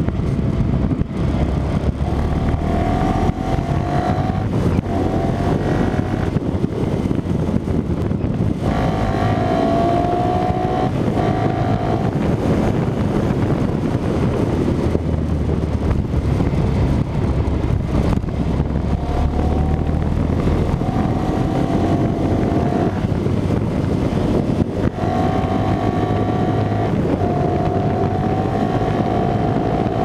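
Motorcycle engine pulling through several long accelerations, its note rising slowly in each, under heavy wind noise buffeting the microphone.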